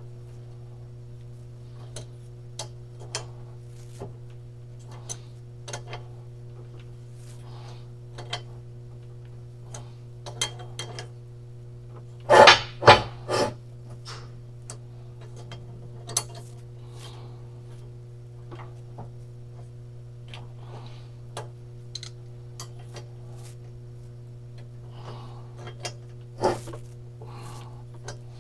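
Scattered light metallic clicks and taps of pliers and hand tools working at a broken exhaust stud on an aluminum cylinder head, over a steady electrical hum. About twelve seconds in come three louder knocks in quick succession, and one more sharp knock near the end.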